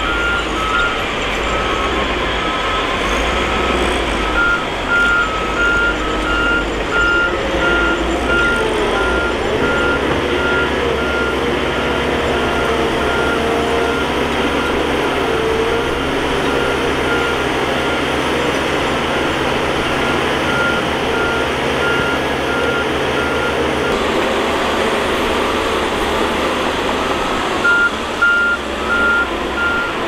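Heavy bulldozer's diesel engine running steadily, with its reversing alarm beeping over it in an even series; the beeping breaks off twice for a few seconds and resumes.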